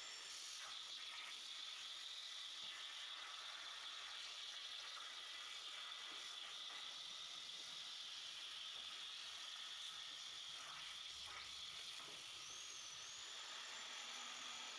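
CNC plasma torch cutting steel plate: a steady hiss from the arc and air jet. A thin high whine is heard briefly at the start and again near the end.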